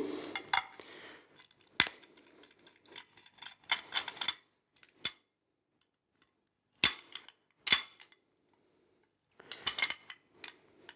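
Scattered light metallic clicks and taps of a screwdriver and fingers working on a hard drive's bottom magnet bracket and its screw: single sharp clicks and a few quick clusters, with short quiet gaps between them.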